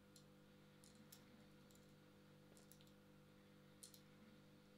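Near silence with a few faint, irregular clicks of tracer BBs being pushed one at a time into an airsoft FNX-45 gas pistol magazine, over a faint steady hum.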